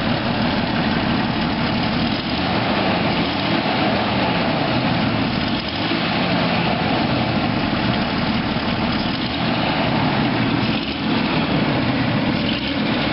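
1993 Jeep Grand Cherokee engine idling steadily with a freshly replaced exhaust manifold; a header crack, which the owner says is still there, leaves a slight exhaust leak.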